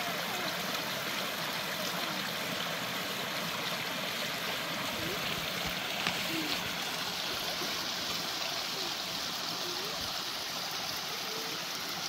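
Small woodland stream running over rocks and little drops, a steady rush of water with bubbling gurgles scattered through it.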